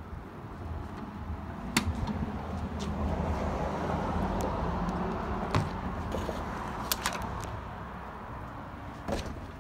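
Trunk lid of a Mercedes-Benz W126 being opened: a sharp latch click about two seconds in, then a steady rushing noise with two more sharp clicks a little later.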